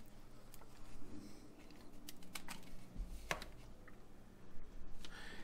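Light clicks and taps of a cylindrical sea salt container being shaken over a bowl of flour and set down on a granite counter, with one sharper knock about three seconds in.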